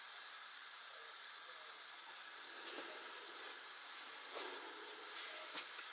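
Steady hiss of compressed air from the supply hose feeding a gauge one model locomotive's cylinders, with a few faint light clicks.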